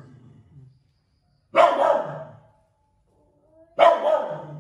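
A dog barking at a snake: two loud barks, each a quick double, about a second and a half in and again near the end.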